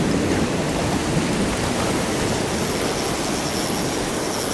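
Steady roar of ocean surf washing over the shore. A faint high whine joins in about halfway through.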